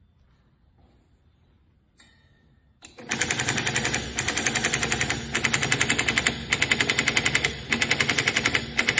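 Cam-driven pulse-braking mechanism on a bicycle wheel: the brake is pushed on and off the spinning wheel's rim in a fast rattle of knocks, about ten a second. It starts about three seconds in and runs in stretches of about a second with brief dips between them. This is the on-off braking meant to keep the wheel from locking.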